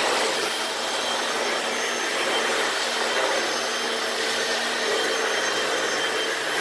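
Hoover Floormate hard-floor cleaner running steadily on suction alone, its vacuum motor drawing the dirty cleaning solution back up off the floor in the extraction pass, with the brushes and spray switched off.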